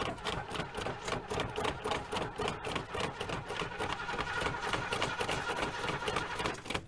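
Carbureted Ford 460 V8 of an early-1980s Tioga motorhome on a cold start: the starter cranks the engine in a fast, even rhythm.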